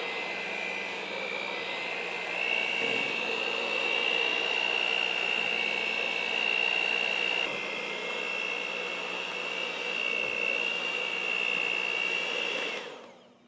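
Electric hand mixer running steadily with a high motor whine, its beaters working through thick brownie batter in a stainless steel bowl as flour is added. Its pitch shifts slightly a couple of times, then it is switched off near the end, the whine falling away.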